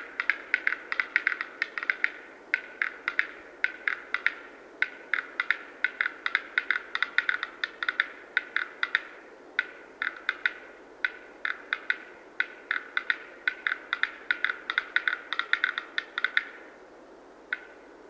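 Male black-billed capercaillie giving its display song: rapid runs of sharp, dry clicks, each run a second or two long with short gaps between. The clicking stops near the end, and one last click follows a second later.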